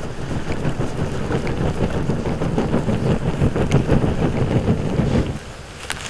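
Wood fire flaring up as the split firewood catches over the coals: a low rushing rumble of flames with small crackling pops, building and then cutting off sharply about five seconds in.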